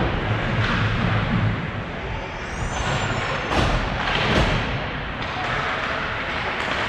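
Hockey game in a rink: a steady scraping, rushing noise of play, with a few sharp knocks about halfway through.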